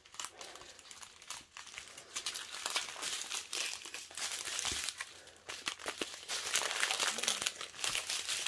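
Small plastic bags of resin diamond-painting drills crinkling and rattling as the strips of bags are handled and shaken, with many quick crackles throughout.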